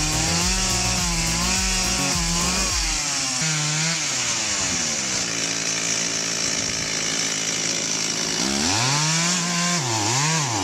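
Chainsaw cutting into a tree. Its engine pitch wavers, dips, then climbs sharply and sags twice near the end as the chain loads up in the wood.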